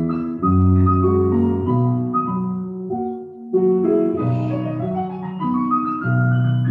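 Ballet class piano music: a melody over chords and held bass notes, changing every second or so.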